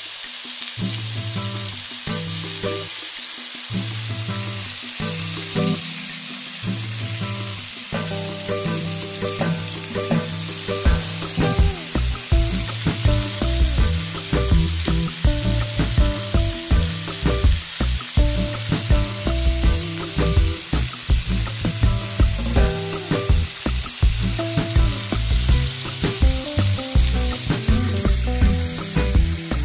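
Seasoned oxtail pieces sizzling as they brown in oil in a nonstick frying pan, a steady frying hiss. Background music with a beat runs underneath and gets stronger about ten seconds in.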